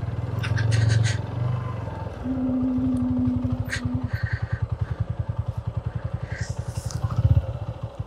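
Motorcycle engine idling with an even, rapid putter, with a few light clicks near the start and a steady low hum for about two seconds partway through.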